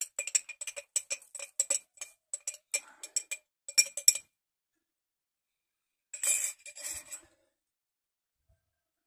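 Small glass jar of mushroom spawn being knocked and shaken to work the spawn out: quick glassy clinks and rattles, several a second, for about four seconds. After a short pause comes a second, rougher clinking rattle lasting about a second.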